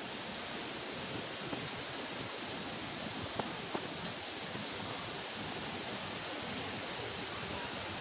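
Steady rush of falling water, an even hiss, with a couple of faint taps about three and a half seconds in.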